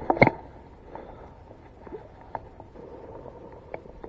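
Hands handling fishing line and tackle close by: scattered small clicks and rustles, with one loud knock a fraction of a second in.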